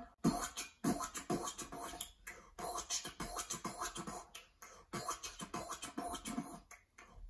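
A man beatboxing: a quick stream of short percussive mouth sounds, broken by brief pauses between phrases.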